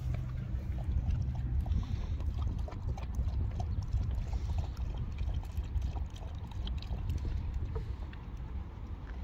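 Wind rumbling on the microphone, with water lapping softly against the shore rocks and a few small scattered clicks.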